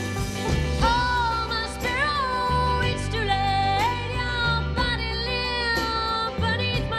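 Live band music: a woman's voice holds long wordless notes that slide up into each pitch, over steady bass notes and guitar.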